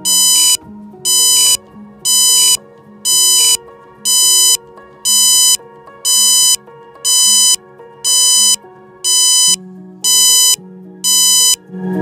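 Bicycle turn-signal remote's buzzer beeping about once a second, each beep about half a second long, the sign that the indicator is switched on; the beeps stop shortly before the end. Background music plays underneath.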